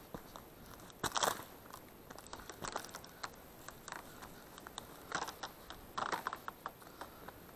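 Boots crunching and crackling on thin pond ice, in uneven steps. The sharpest crunches come about a second in and around five to six seconds in, with small cracking ticks between.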